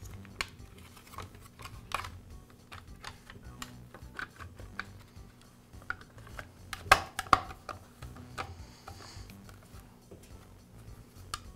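Plastic motor cover of an Echo string trimmer being handled and pressed back into place over the engine: scattered light plastic clicks and knocks, with a louder cluster of knocks about seven seconds in.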